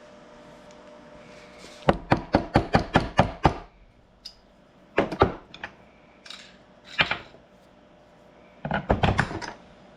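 Tools and loose parts being handled: a quick run of about eight sharp knocks, then a few single knocks and another short clatter near the end.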